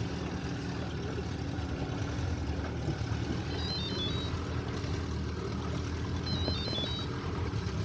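Small boat's outboard motor running steadily at trolling speed, a continuous low hum with wind and water noise.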